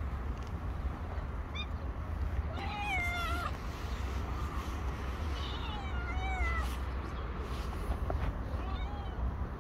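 Stray cat meowing about four times, bending calls with one longer one about three seconds in, begging for food while hungry, over a steady low rumble.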